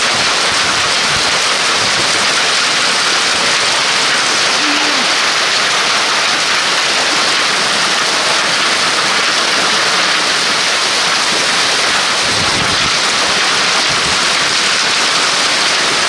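A hailstorm: hail and heavy rain pelting down in a loud, steady hiss, with no let-up.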